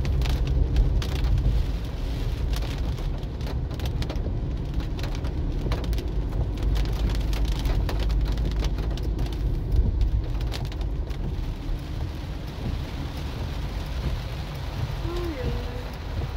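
Heavy rain hitting the roof and windshield of a moving car, heard inside the cabin as many small hits over a steady low road rumble.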